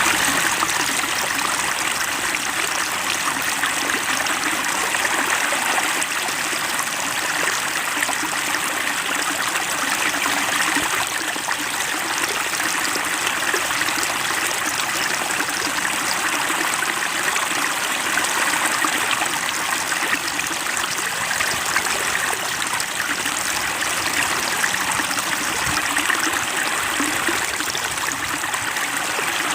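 Flowing water of a small stream, trickling and splashing steadily without pause.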